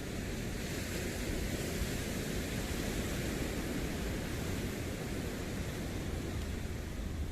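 Steady rushing noise of wind and moving water, heaviest in a low rumble, with no distinct events.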